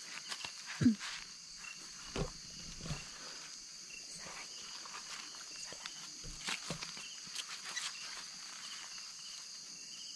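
Steady high-pitched chorus of night insects, with rustling and crunching of footsteps on dry leaf litter and a brief low sound about a second in.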